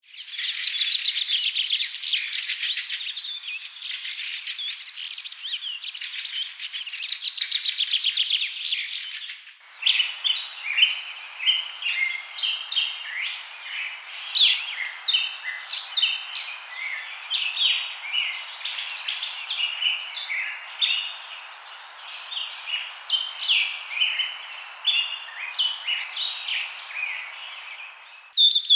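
Small songbirds chirping and singing: a dense, rapid twittering for the first ten seconds or so, then an abrupt change to a sparser run of short chirps over a steady background hiss.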